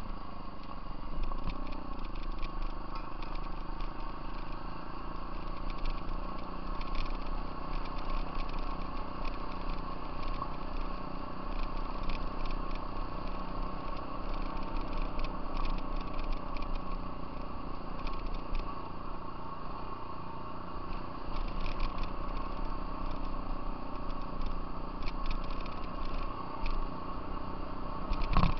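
Off-road vehicle engine running steadily while riding a gravel trail, with light rattling and clatter throughout.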